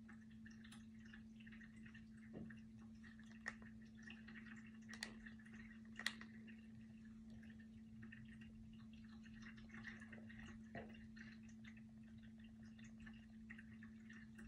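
Near silence: a faint steady hum with scattered faint clicks and taps.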